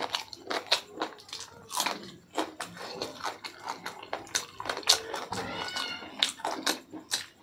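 Close-up wet chewing and lip-smacking of a mouthful of pork curry and rice, with fingers squishing rice on the plate. About five and a half seconds in there is a brief high call that bends in pitch.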